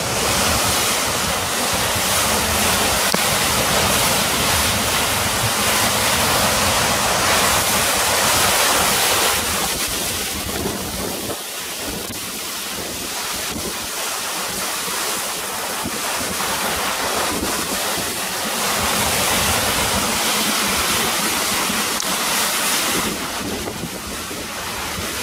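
Flooded river rushing past below a bridge, a loud steady wash of water noise, with wind buffeting the microphone for much of the first half and again near the end.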